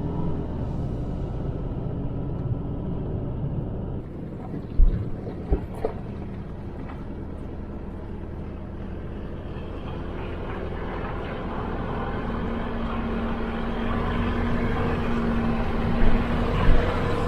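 A vehicle running, with a steady low rumble and a few sharp thumps along the way.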